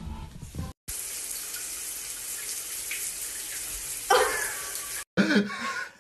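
Steady rush of running water for about four seconds, with a short pitched, voice-like sound over it near the end.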